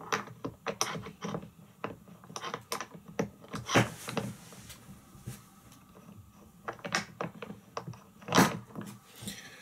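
Handling noise while fly-tying vises are swapped: scattered clicks, knocks and thunks of metal parts being picked up and set down, with a louder knock near the end.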